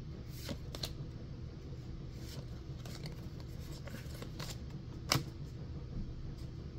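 Pokémon trading cards handled by hand: short flicks and slides as cards are peeled off the stack one after another and set down, with a sharper snap about five seconds in.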